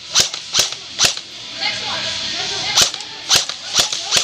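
Airsoft guns firing single shots, sharp pops about half a second apart: three, then a pause of more than a second, then four more.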